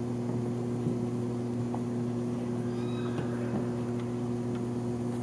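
Steady low electrical hum, with a few faint scattered ticks.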